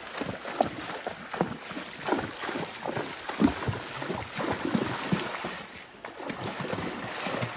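A horse's hooves splashing through a shallow creek, a splash with each stride over the rush of moving water. The splashing eases about six seconds in as the horse slows to a walk.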